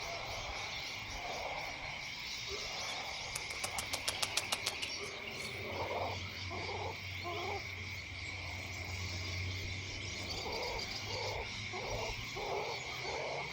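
Evening outdoor ambience: a steady high insect drone, with a quick run of sharp clicks about a third of the way in and two runs of short low calls later on.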